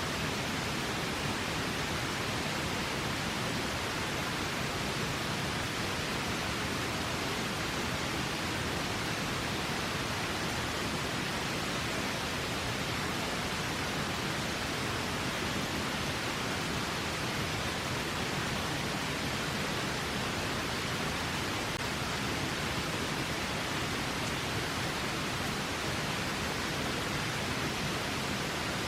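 A river flowing: a steady, even rushing with no breaks.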